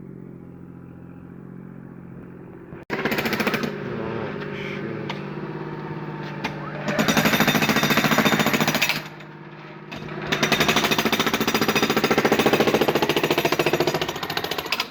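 Jackhammer breaking up a concrete driveway slab in long bursts of rapid hammering, with a short pause about nine seconds in. It starts about three seconds in, after a steady low engine-like hum that cuts off abruptly.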